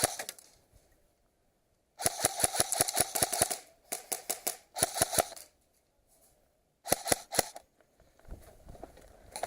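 Airsoft guns firing in bursts of rapid sharp shots: one shot at the start, a long burst about two seconds in, two short bursts soon after, and another short burst near the end.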